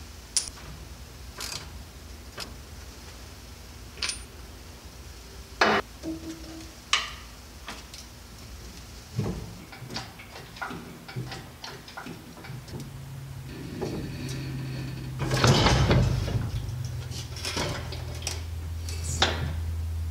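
Hand tools clicking and knocking against a semi truck's drive axle, in scattered sharp metal taps. About two-thirds of the way through, a steady low hum sets in, swells briefly and then holds.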